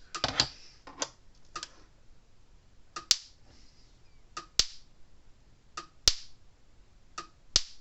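Gallagher M800 electric fence energizer's high-voltage pulses jumping a spark gap: a sharp snap about every second and a half, each with a fainter tick just before it. The steady, strong snaps show the energizer is putting out a good spark.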